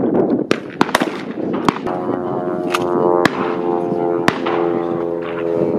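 Several sharp shotgun reports from shooters firing at clay targets on a trap line, irregularly spaced, the loudest about three seconds in. From about two seconds in a steady droning hum sounds underneath.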